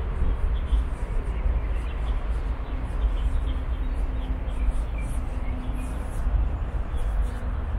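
Outdoor ambience dominated by a steady low rumble, with a few faint short bird chirps.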